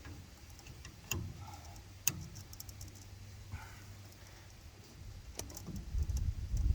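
Metal clicks and clinks from handling the bolts and tools on a circulator pump's flange, with two sharp clicks about one and two seconds in and lighter ticks after. A low rumble of handling noise builds near the end.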